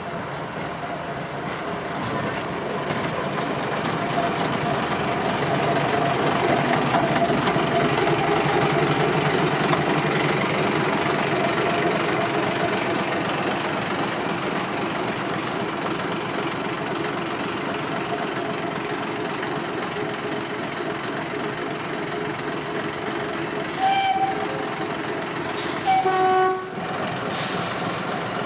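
Small diesel shunting locomotive running as it pulls a rake of coaches into the platform; its engine grows louder over the first several seconds, then holds steady. Near the end it sounds its horn twice, a short toot and then a slightly longer one.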